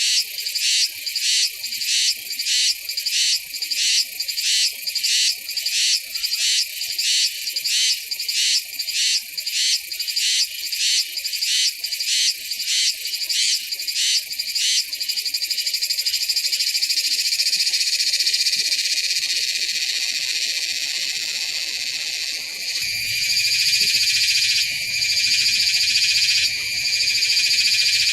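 Cicadas singing, loud and high-pitched. For the first half the song is a rapid series of pulses, about two to three a second. It then runs together into a steady continuous buzz, which shifts to a somewhat louder, fuller drone about two-thirds of the way through.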